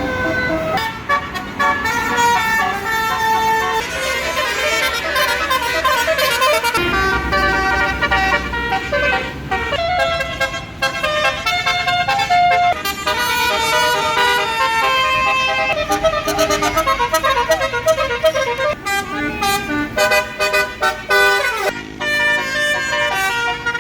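Tour bus basuri horn, a multi-tone electric horn, playing a melody of changing notes over and over. A bus engine rumbles low beneath it for a few seconds in the middle.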